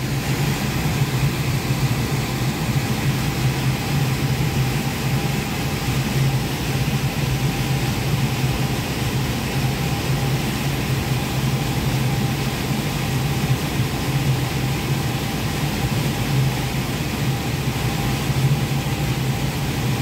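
Liebert Challenger precision air conditioner running with its fan at full speed after being switched on remotely: a steady rush of air over a low hum, which comes up to full level right at the start.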